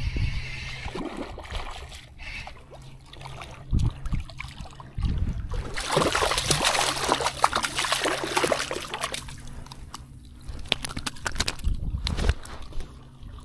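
Shallow saltwater sloshing and splashing as a hooked speckled trout is pulled in by hand to the surface, with a stretch of heavy splashing from about six to nine seconds in.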